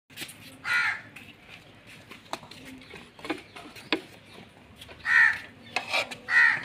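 A crow cawing, once near the start and several times toward the end, with a few light clinks of a serving spoon against the pot and plate in between.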